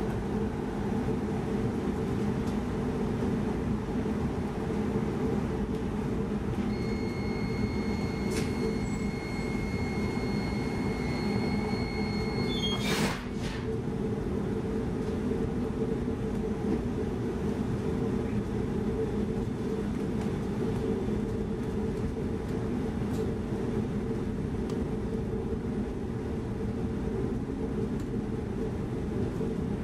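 Steady rolling and running noise inside a moving X10 electric commuter train carriage. Partway through, a steady high tone sounds for about six seconds and ends in a sharp click.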